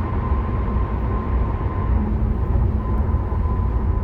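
Steady in-cabin road and engine noise of a BMW F07 5 Series GT 20d cruising, a low even rumble with a thin steady tone above it.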